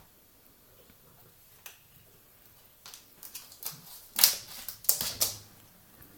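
A cat batting at and scrabbling over a plastic cable tie: a run of scratchy clicks and rattles. They come thicker and louder in the second half, with a few sharp scrapes.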